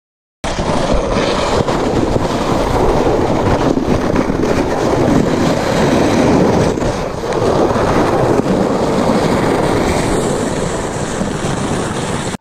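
Sled sliding fast over snow: a loud, steady rushing scrape with wind on the microphone. It starts suddenly about half a second in and cuts off at the end.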